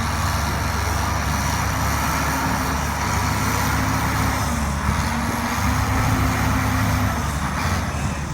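John Deere bulldozer's diesel engine running steadily, its pitch dipping briefly about halfway through.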